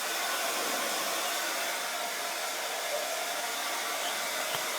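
Handheld hair dryer running steadily, a continuous blowing hiss.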